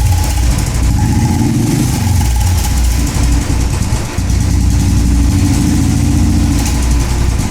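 Royal Enfield motorcycle engine idling steadily through an original Indori silencer, a loud, even low exhaust note that dips briefly about four seconds in.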